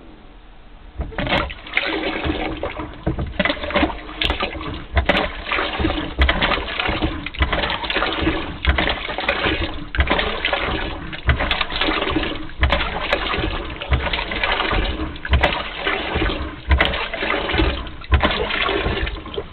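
Angram hand-pull beer engine pumping water: water spurting from the swan-neck spout and splashing into a tray, in repeated uneven surges that start about a second in and stop just before the end.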